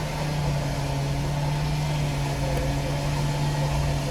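Steady hum of a vehicle's engine and road noise heard from inside the cabin, one low even drone that holds without change.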